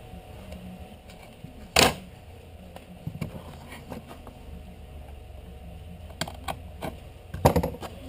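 Hand tools knocking and clicking on a wooden workbench as leather is worked: one sharp knock about two seconds in, a few lighter taps a second later, and a quick run of clicks and knocks near the end, over a low steady hum.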